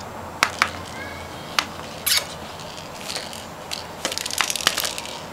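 Sharp clicks and knocks from a plastic stacking-ring toy being handled, with a quick run of clicks about four seconds in.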